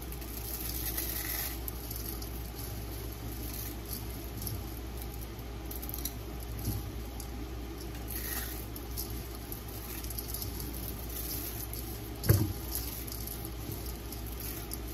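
Soft, wet squishing and rustling as cooked fideo noodles are pulled apart by hand in a metal colander, over a steady low hiss from chicken cooking in a skillet. A single sharp knock about twelve seconds in.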